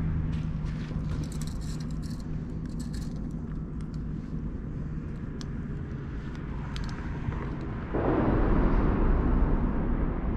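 A steady low motor hum with rustling and a few clicks in the first few seconds; a louder rushing noise sets in near the end.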